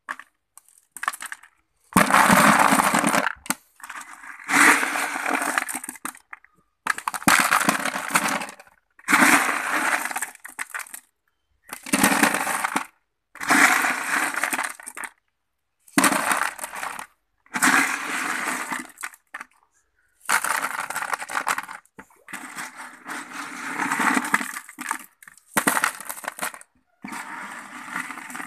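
Crushed stone tipped into a plastic tub, clattering against the plastic and onto the gravel in a dozen or so bursts, each a second or two long, with short gaps between.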